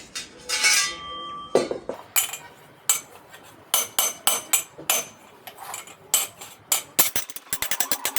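Hammering on metal: sharp ringing strikes at irregular intervals, then a fast run of rapid strikes about a second before the end.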